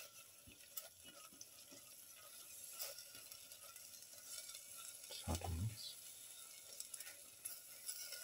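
Spatula stirring and scraping a tomato and spice masala in a pan, with a faint steady sizzle and scattered light scrapes. A dull thump about five seconds in.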